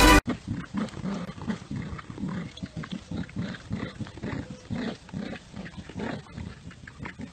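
Two dogs play-growling as they tug on a toy: a run of short, low growls, several a second, rising and falling in loudness. Loud music cuts off right at the start.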